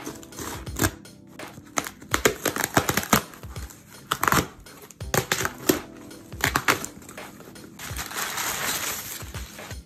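Scissors cutting and ripping through packing tape on a cardboard box, a run of sharp, uneven snips and scrapes. About eight seconds in, crumpled kraft-paper packing crinkles as a hand digs into the box.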